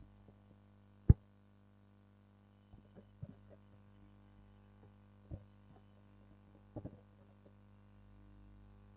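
Steady low electrical hum with one sharp click about a second in, then a few softer knocks and taps.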